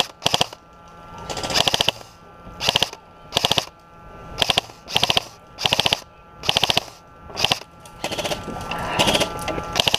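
Airsoft rifle firing short full-auto bursts of four to six rapid shots, about one burst a second, with a faint steady whine between bursts.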